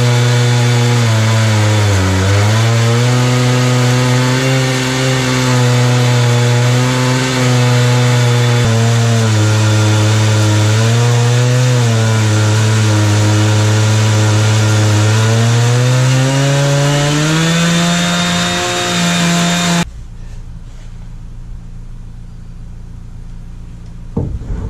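Stihl MS 460 chainsaw with a ripping chain running at full throttle in a Granberg Alaskan mill, ripping through a log. The engine pitch sags and recovers as the saw is fed through the cut, then rises and the sound stops abruptly about twenty seconds in.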